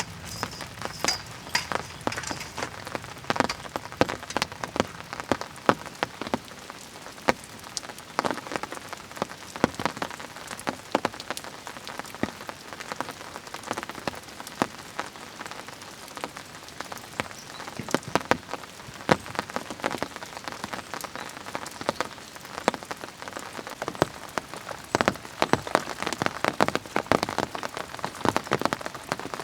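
Rain falling steadily, with many separate drops striking close by in quick, irregular taps.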